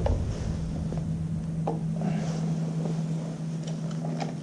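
Steady low hum at one pitch, with a few faint clicks and taps from a screwdriver working a motorcycle battery terminal screw.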